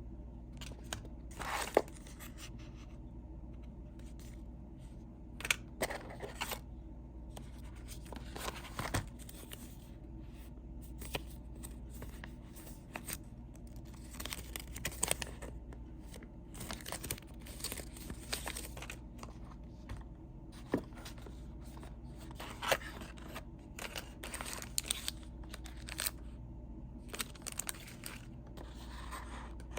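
Packaging being handled and opened: irregular rustling, tearing and scraping of cardboard and plastic with scattered sharp clicks, over a low steady hum.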